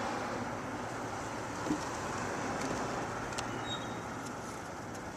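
Steady background noise, like a distant road or room hum, with a few faint clicks.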